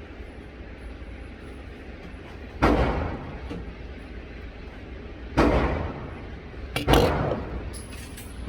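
Gunshots, each with a short trailing echo: single shots about two and a half seconds apart, then two almost together near the end.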